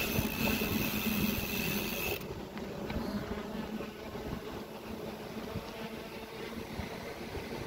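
Wind buffeting the microphone over the low rumble of a bicycle rolling along paving stones. A high, steady hiss runs for about the first two seconds and then stops.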